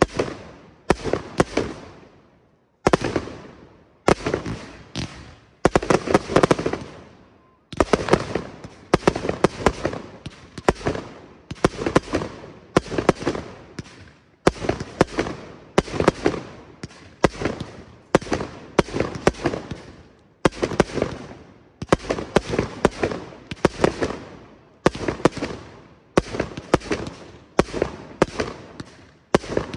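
Fireworks display: aerial shells bursting in a continuous barrage. The sharp bangs come in quick clusters about every second, each one trailing off in a long echo.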